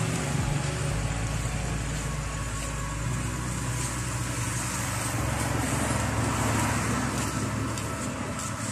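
Street traffic: a steady rumble of passing cars and other road vehicles.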